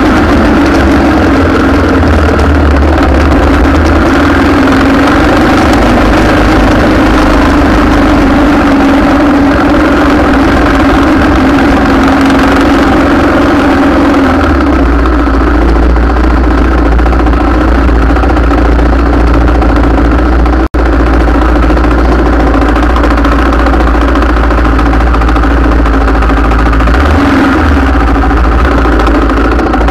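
A vehicle engine idling steadily close by, a constant hum over a deep rumble. About two-thirds of the way through, the sound drops out for an instant.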